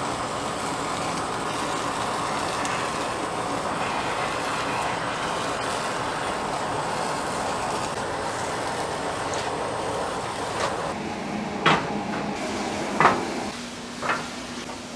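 Steady rushing kitchen noise that eases off near the end, leaving a low hum. Four sharp clanks of metal or dishes come in the last few seconds.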